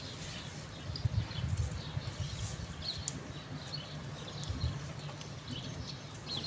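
Small hand cultivator scraping and scratching through garden soil as a sowing furrow is drawn, over a low rumble, with birds chirping faintly in the background.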